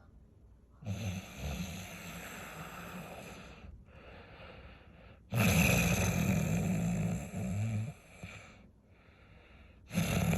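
A person snoring: two long, rasping snores, each followed by a softer breath out.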